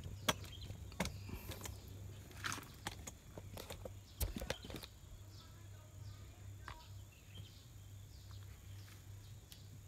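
Faint outdoor background: a steady low hum with a few short clicks, the sharpest a little after four seconds in, and faint high bird chirps in the second half.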